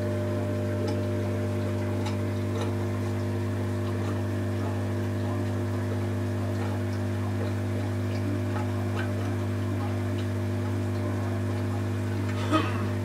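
Aquarium air pump humming steadily with a low buzz, driving sponge filters, with faint irregular ticks of bubbles. A brief louder knock comes near the end.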